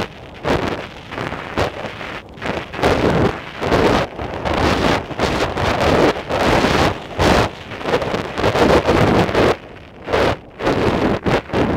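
Wind buffeting the camera's microphone in loud, uneven gusts, from the rush of air while skiing downhill.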